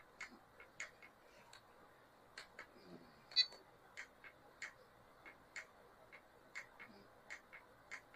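Faint, light clicks, two or three a second and unevenly spaced, with one sharper click about three and a half seconds in. They are heard while the crawler's 2-speed channel is being worked, and that channel is not working.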